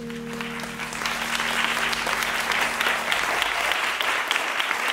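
Applause from a crowd, many hands clapping, growing fuller after about a second. Under it, the last held chord of music dies away about three seconds in.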